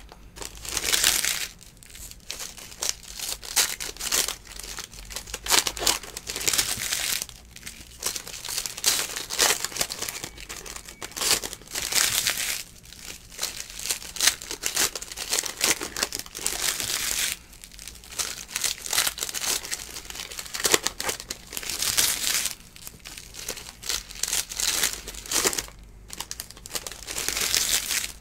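Plastic wrappers of basketball trading-card packs crinkling and tearing as packs are ripped open, with the cards handled and shuffled. A crackly rustle that swells and eases every few seconds.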